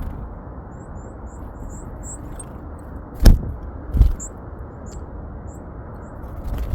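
Thin, very high bird calls, a run of short separate notes, from a small songbird, over steady low background noise. Two loud dull thumps come about three and four seconds in.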